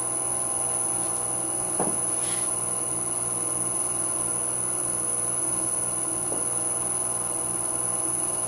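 Three-phase electric motor on a frequency drive running an old bench lathe through a belt at 20 Hz, a steady hum made of several even tones with a constant high whine. A faint knock sounds about 2 seconds in and again about 6 seconds in.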